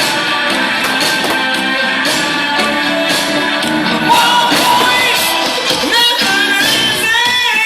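Rock music with guitars, and a singing voice coming in about four seconds in with long, bending held notes.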